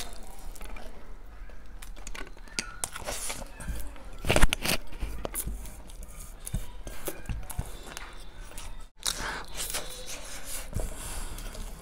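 Close-miked mouth sounds of eating biryani by hand: chewing and lip smacks, with fingers working rice on a steel plate. One louder, brief noise comes about four and a half seconds in.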